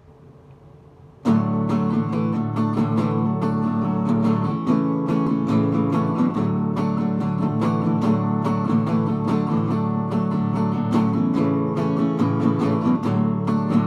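Acoustic guitar strummed steadily, playing a song's instrumental intro; it starts about a second in, after a moment of near quiet.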